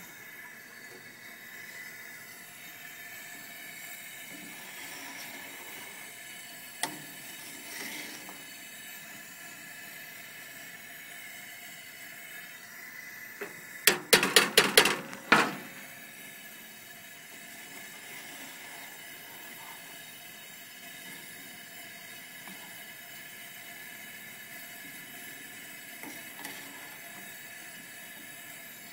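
Coleman propane camp stove burner hissing steadily under a coffee can of melting lead. About halfway through comes a quick run of sharp metal knocks as a metal rod works in the can.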